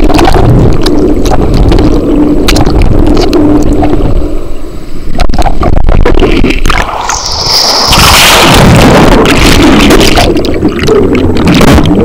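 Rushing, churning water of an indoor rapids ride heard through a waterproof camera held underwater: a loud, dense gurgling noise, with a few sharp knocks about five to six seconds in.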